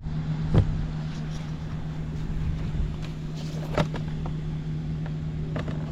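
Honda Squash AB11 scooter engine idling steadily, running quietly with no abnormal engine noise, with a couple of sharp knocks about half a second in and near four seconds.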